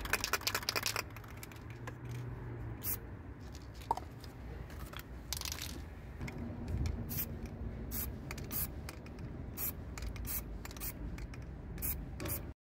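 Aerosol spray paint can hissing, a longer spray near the start and then a run of short bursts, putting a white primer coat on.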